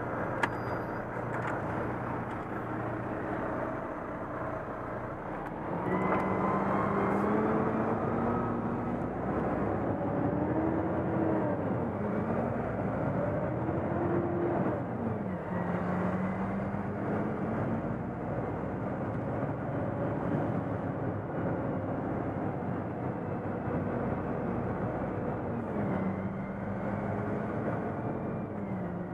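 Volvo FM truck's diesel engine heard from inside the cab, growing louder about six seconds in as it pulls away, its pitch rising and dropping back several times through the gears, then running at a steady pitch. A single sharp click sounds just at the start.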